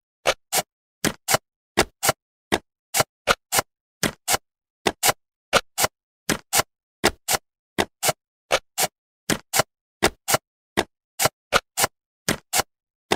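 Cartoon sound effect of jigsaw puzzle pieces clicking into place: a long run of short, dry clicks, mostly in close pairs, a few a second, with silence between them.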